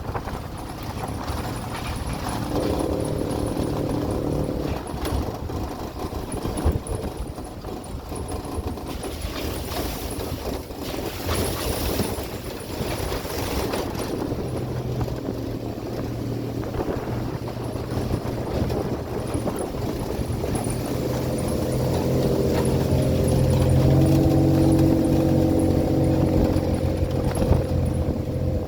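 Vehicle engine running while driving over a rough off-road dirt track, with scattered knocks and jolts from the bumps. The engine gets louder and higher in pitch for several seconds near the end.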